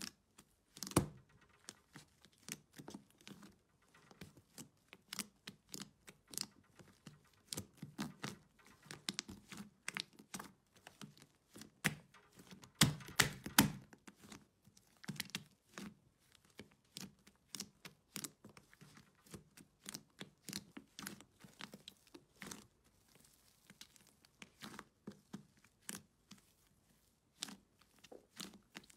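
Hands kneading and pressing thick blue fluffy slime in a plastic tub: a steady stream of small sticky clicks and pops as air pockets in the slime burst. A louder run of pops comes about 13 seconds in, and a strong one about a second in.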